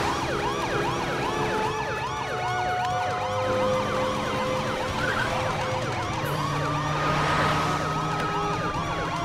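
Several police sirens yelping at once, their quick rising-and-falling sweeps, about three a second, overlapping one another over a low rumble of traffic.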